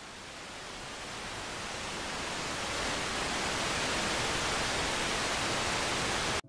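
A steady hiss of noise that swells over the first three seconds, holds, and cuts off suddenly near the end.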